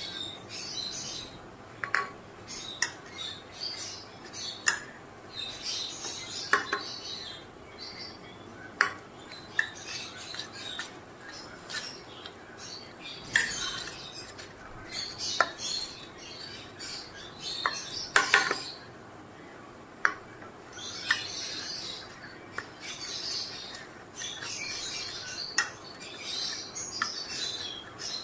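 Metal spoon stirring thick flour batter in a stainless steel bowl, with irregular clinks and scrapes of the spoon against the bowl.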